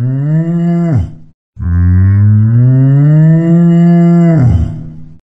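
Cow mooing twice: a short moo that rises in pitch and ends about a second in, then a long moo of about three and a half seconds that rises, holds and drops away at the end.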